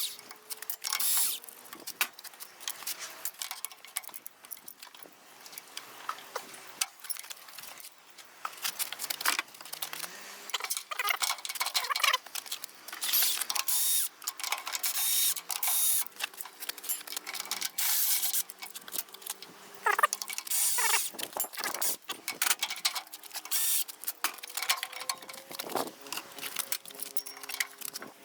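Metal hand tools and engine parts clicking, scraping and clattering in irregular bursts as a Hangkai 6 hp outboard motor is taken apart.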